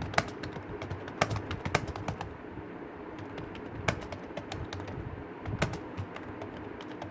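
Computer keyboard being typed on: irregular keystrokes clicking away, a few louder clacks standing out among softer ones.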